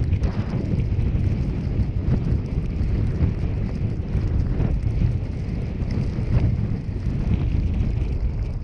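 Steady low rumble of a car driving, with wind buffeting the microphone.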